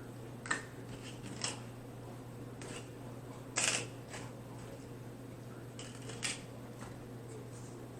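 Scattered light clicks and one short rustle of takeout food containers and condiment cups being handled, over a steady low hum.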